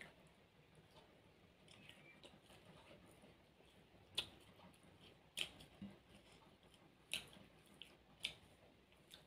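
Quiet, close-miked eating by hand: about four sharp wet clicks and smacks, roughly a second apart, in the second half, over faint room tone.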